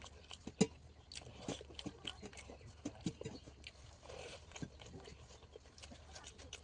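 A person chewing and eating food, with many irregular short wet clicks and crunches from the mouth.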